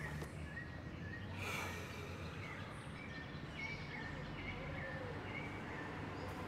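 Short bird chirps repeating every half second or so over a steady low background rumble.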